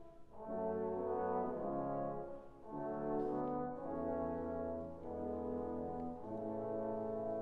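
Background music: slow held chords in a brass-like sound, changing roughly every second or so.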